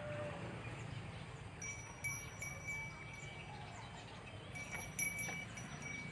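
Small brass bell on a cow's collar ringing twice, each ring a clear tone held for about a second, as the cow moves its head while feeding on straw.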